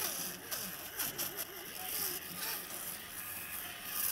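Fish scaler scraping the scales off a milkfish, a run of quick, uneven rasping strokes.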